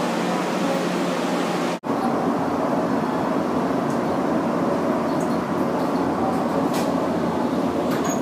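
Steady hum and running noise of a Japanese diesel railcar heard from inside the car, with a few steady tones over it. The sound cuts out for an instant about two seconds in, then carries on the same way.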